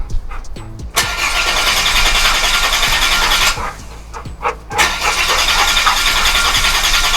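A Holden VY Commodore's starter motor cranking the engine in two long bursts, each a couple of seconds, with a few clicks in the pause between them. The engine does not catch: a crank-no-start, which the owner thinks could come from a blocked fuel pickup, a dead fuel pump or too little fuel.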